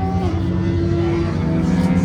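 An engine or motor running at a steady speed, with a slight drop in pitch just after the start.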